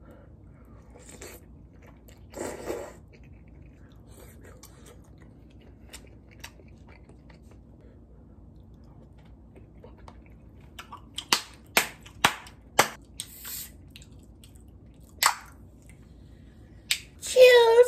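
Close-miked eating of Korean braised chicken with glass noodles: slurping, chewing and wet mouth sounds, with several sharp clicks in the second half. Near the end a drink can is cracked open, followed by a short vocal sound.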